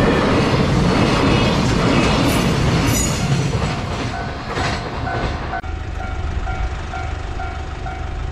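A train passes over a level crossing with a loud rumble and wheel clatter that dies away after about three seconds. The Japanese crossing warning bell keeps up its steady repeating ding, which comes through clearly once the train has gone.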